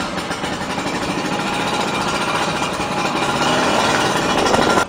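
Old Vespa scooter's two-stroke engine running with a dense rattle, then cutting out abruptly at the very end as the engine stalls, a stall the riders put down to an overheated spark plug.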